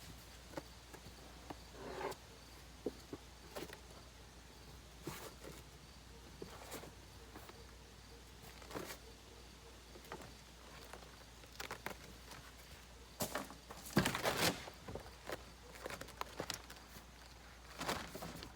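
Scattered light clicks, taps and rustles of hand work with materials, with a longer, louder rustling scrape about fourteen seconds in.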